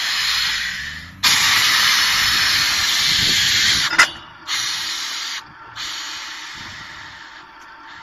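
Compressed air hissing loudly at a down-the-hole (DTH) drilling rig. It cuts in sharply about a second in and shuts off with a click near four seconds. Two shorter blasts follow and then fade.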